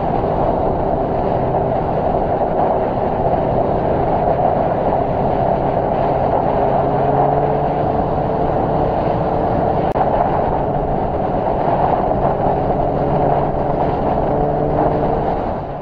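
Motorcycle cruising at highway speed, heard from the rider's helmet camera: a steady engine drone under heavy wind and road rush, the engine pitch edging up slightly about halfway through.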